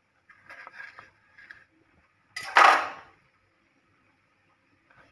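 Kitchen knife cutting tomato on a wooden chopping board: a few soft knocks and scrapes, then about two and a half seconds in a louder clatter lasting about half a second.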